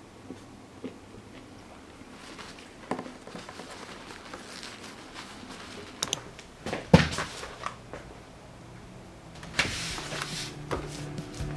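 Clicks and light knocks of small objects being handled in a quiet room, with a sharper knock about seven seconds in and a brief rustle near the end.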